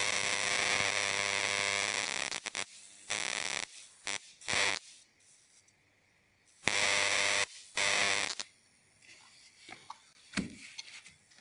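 High-voltage arc of a home-built plasma speaker driven by a TV flyback transformer, buzzing and hissing in bursts that switch on and off while the driver circuit is tuned toward resonance. A long burst of about two seconds comes first, then several shorter ones, and only faint crackles are left near the end.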